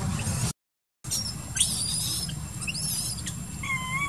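Wild animal calls in the treetops. A cluster of high, quickly bending squeaky chirps comes about one and a half seconds in, then short arched whistled calls repeat near the end, over a steady low rumble. The sound cuts out completely for about half a second near the start.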